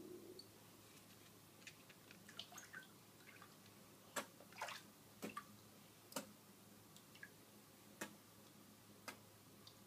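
Near silence in a filled bathtub, broken by faint, sharp water drips about once a second from midway on, with a few small irregular splashes earlier.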